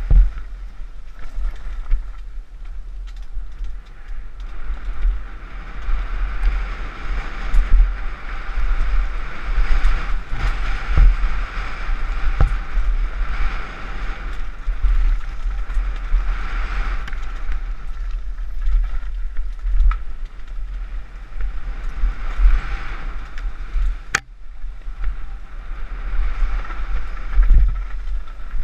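Mountain bike descending a rough trail, heard from a camera on the bike or rider: wind buffeting the microphone, a steady hiss of tyres on dirt and gravel, and the bike rattling with frequent knocks from bumps, one sharp click about 24 seconds in.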